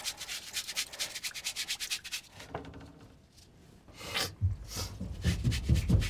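Hands scrubbing hard together at a washbasin under a running tap: a fast rasping rub of about nine strokes a second that stops about two seconds in. Low, irregular thumps follow in the last two seconds and are the loudest part.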